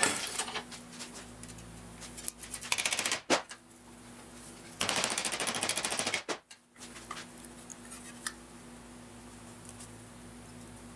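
Two bursts of rapid, even rattling from a power tool working sheet steel, the second longer and louder, with a metal knock at the start and a low steady hum underneath.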